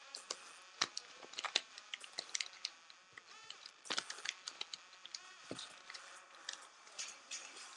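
A sheet of paper being folded by hand, crinkling and crackling in sharp, irregular snaps as the creases are pressed into an origami crane.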